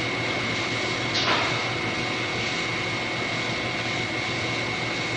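Steady hiss and hum of an old recording of a talk, with a thin steady high whine running through it. A brief faint swish comes about a second in.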